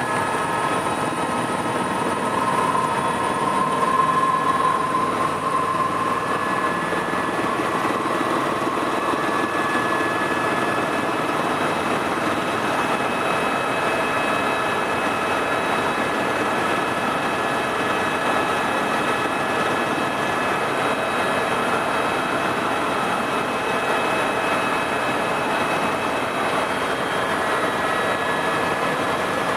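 Tour helicopter heard from inside the cabin in flight: a steady rush of engine and rotor noise with a few constant high whines, a little louder for a few seconds near the start.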